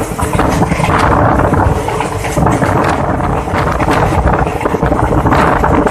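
Loud wind buffeting on the microphone over the rumble and rattle of a passenger train coach running at speed.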